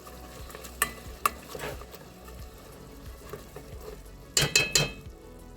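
Hamburger and onions sizzling in an oiled pan while being stirred, the utensil knocking against the pan twice about a second in and clattering in a quick run of knocks and scrapes near the end.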